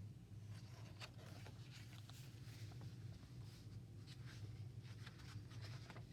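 Near silence: room tone with a steady low hum and faint scattered rustles and light ticks.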